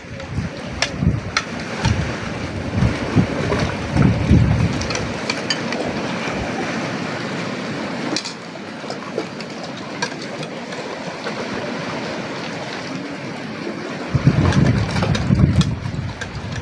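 Sea wind buffeting the microphone in gusts, strongest in the first few seconds and again near the end, over a steady hiss of wind and surf, with a few light clicks.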